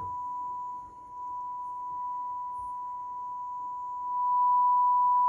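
A steady, pure sine-wave test tone played through a Modular Component Systems 3233 stereo receiver during its post-repair testing. The tone dips briefly about a second in and gets louder about four seconds in.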